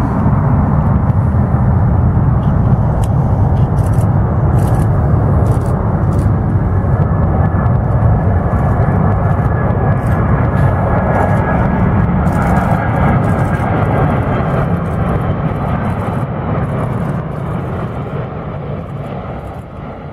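Boeing 747-400's four General Electric CF6 turbofans on final approach with landing gear down, passing close by: a loud, steady jet roar with a faint whine, fading over the last several seconds as the airliner moves away.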